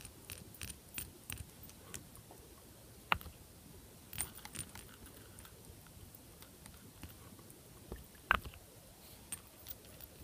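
Scattered small clicks and taps as a nail-polish bottle and brush are handled while top coat goes on, with two louder sharp clicks about three and eight seconds in.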